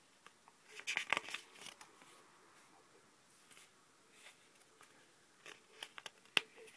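Paper cue cards being handled and swapped, crinkling and crackling in two short clusters, about a second in and again near the end.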